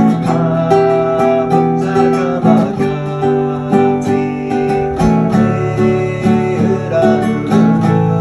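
Background music: acoustic guitar played in a steady, rhythmic pattern.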